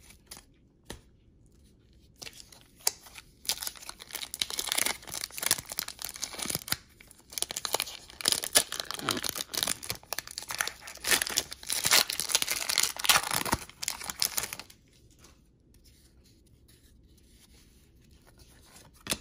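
A trading-card pack's wrapper being torn open and crinkled: a long stretch of ripping and crackling that starts about two seconds in and stops about fifteen seconds in.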